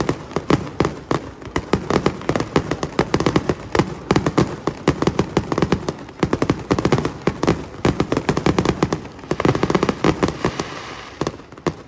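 Fireworks display in a rapid barrage: dense cracks and bangs, several a second, over deep booms, easing off a little near the end.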